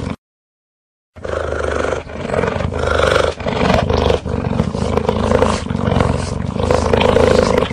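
Cheetah vocalizing: after a second of silence, a continuous low, pulsing call that swells and eases in stretches of about a second each.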